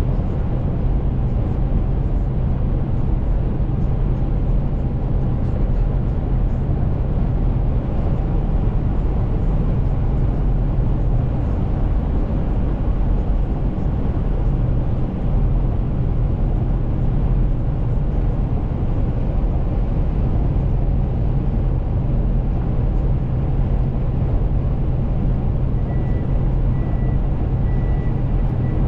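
Semi-truck cruising on the highway, heard from inside the cab: a steady low engine drone with road and tyre noise. A faint broken high beep comes in near the end.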